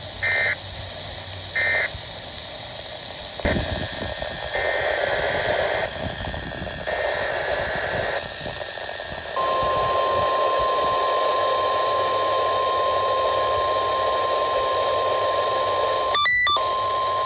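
Weather radio broadcast: the last two short data bursts of the SAME end-of-message code, then a click and several seconds of radio hiss. About nine seconds in, a steady single-pitch alert tone near 1 kHz starts and holds, the Weatheradio warning tone that opens the next test broadcast, broken briefly near the end by a short burst of mixed tones.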